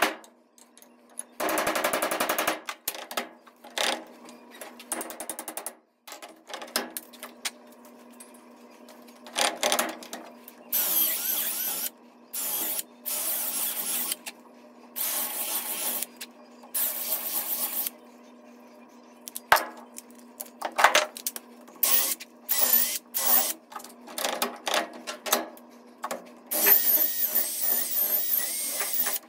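Cordless drill boring out the wooden handle remains in the eye of a double-bit axe head held in a vise, running in short bursts of a few seconds that start and stop abruptly. Around the middle comes a cluster of sharp knocks from a hammer striking a steel punch to drive the wood out.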